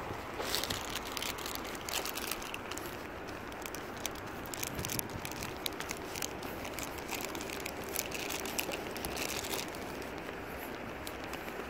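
Clear plastic fruit-snack pack crinkling and crackling in a hand, with many sharp crackles from about half a second in until a couple of seconds before the end, over a steady background hiss.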